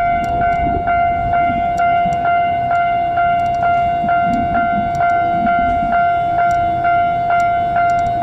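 Japanese railway level-crossing alarm ringing: evenly repeated electronic bell strokes, about two and a half a second, over a steady ringing tone.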